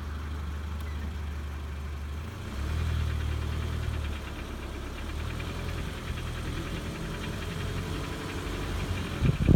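Ford Fiesta engine running with a knock in it. The revs rise briefly about two and a half seconds in and drop back about a second and a half later. A few loud low thumps come near the end.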